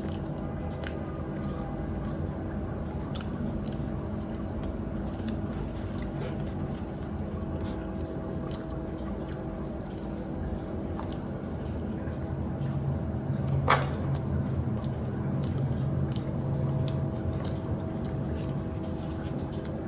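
A person eating by hand and chewing, close to the microphone: many small mouth and food clicks over a steady low hum, with one sharper click about two-thirds of the way through.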